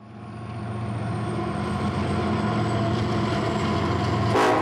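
Steady engine-like drone, fading in over the first second or so, with a brief louder sound near the end.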